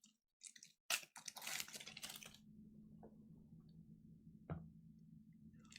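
Rustling and tearing of a fan-mail package being opened, mostly in the first half, with a few scattered clicks.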